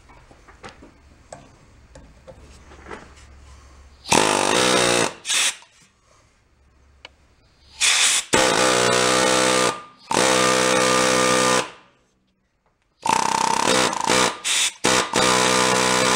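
Pneumatic air hammer driving a screwdriver bit in a 'shake and break' holder, hammering and twisting on a stuck screw in the flywheel of a 1937 Sears Waterwitch outboard to break it loose. It rattles in bursts, starting about four seconds in: several long runs of a second or more, mixed with a few short stabs, and faint clicks of handling before the first burst.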